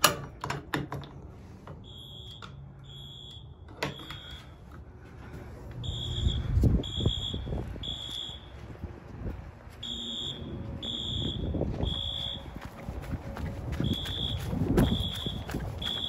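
Sharp clicks as a fire alarm pull station is pulled. Then a fire alarm horn sounds a high beeping tone in the temporal-3 pattern: three beeps and a pause, repeated, which signals the system is in alarm. A low rumble runs under the later beeps.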